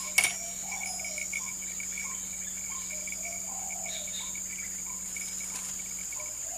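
Steady insect chirring: a high whine with a fast pulsing trill beneath it. Faint short calls repeat about three times a second, and one sharp click comes about a quarter of a second in.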